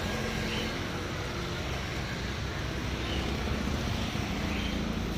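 Steady road traffic noise: vehicles running along the street with a continuous low rumble.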